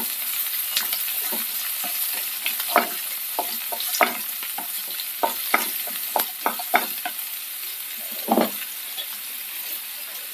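Chopped shallots sizzling in hot coconut oil in a nonstick frying pan, stirred with a wooden spatula that scrapes and taps against the pan many times.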